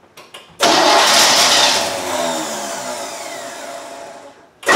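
Newly rebuilt 350 small-block Chevy V8, cranked by its starter, catches and runs for about four seconds with its revs falling away, then cuts out suddenly. It is cranked again right at the end. It will not keep running while its ignition timing is being set.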